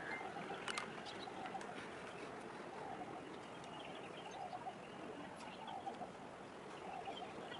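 Faint outdoor ambience with birds calling: a low call repeats about once a second over a steady background hiss, with a few higher chirps and a sharp click about a second in.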